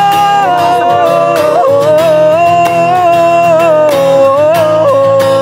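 A man singing a slow melody in long held notes while strumming an acoustic guitar with steady, even strokes.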